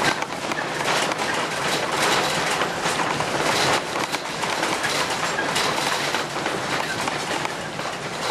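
Continuous rattling, clattering and road noise from inside a tiny house being towed on a trailer, with its frame and loose contents shaking and knocking as it rolls over the road.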